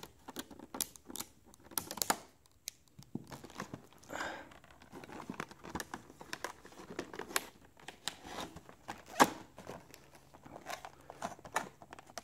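Clear plastic packaging crinkling and rustling as a boxed solar panel is handled and unpacked, with scattered clicks and taps from the cardboard box; one sharper click about nine seconds in.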